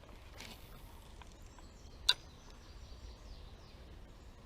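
Quiet outdoor ambience with faint high chirps, and one sharp click about two seconds in.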